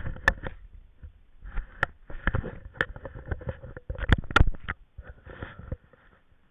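Irregular knocks and clicks with bursts of rustling, stopping shortly before the end.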